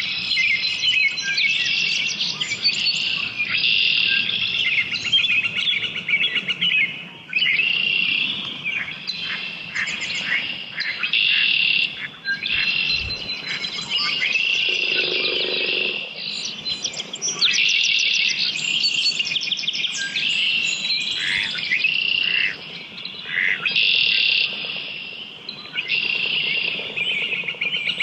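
Morning chorus of several songbirds singing at once: overlapping chirps, trills and whistled phrases, with no break. A brief lower-pitched call stands out about halfway through.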